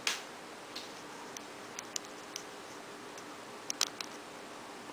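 Quiet steady hiss with scattered small clicks and ticks: one at the start, a few spread through the middle, and the sharpest cluster of two or three a little before the end.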